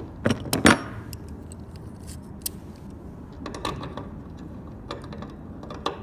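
Metal rigging hardware clinking as a steel turnbuckle is turned tight by hand on a stainless steel cable by a D-ring: a few sharp metallic clicks in the first second, then scattered lighter clicks.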